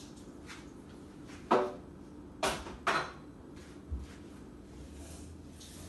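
Three sharp knocks, about a second and a half, two and a half and three seconds in, then a softer one about four seconds in: kitchen things being handled and set down, each with a brief ring, over a faint steady hum.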